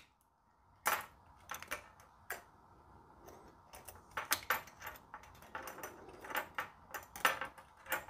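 Scattered light metal clicks and clinks from a Leatherman Rebar multitool being handled, its pliers shifted in the hand and a coat-hanger wire set into the cutters. The clicks come singly at first and more often in the second half.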